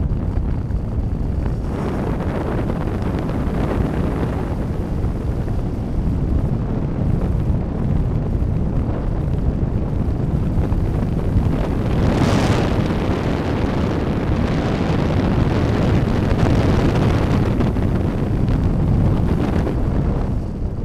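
Wind rushing over the onboard camera microphone of a Strix Stratosurfer FPV plane in flight: a steady, noisy rush that swells about twelve seconds in and stays a little louder until near the end.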